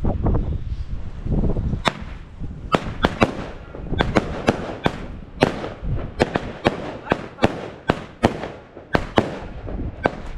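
Fireworks going off in a rapid, uneven series of sharp bangs, about two to three a second, starting about two seconds in after a low rumble.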